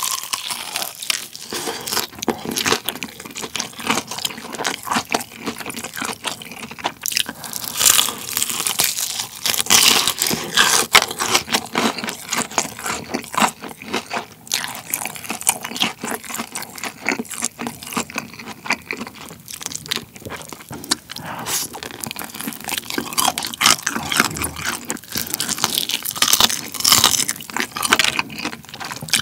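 Close-miked crunching of the crisp fried batter on a BBQ Golden Olive fried chicken drumstick, bite after bite, mixed with chewing. The crunching comes in dense runs of crackles, loudest around eight to eleven seconds in and again near the end.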